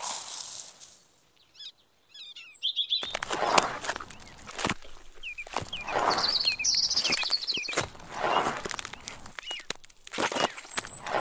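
A tiny metal trowel scraping and stirring wet cement powder, in gritty strokes about every two seconds, with birds chirping.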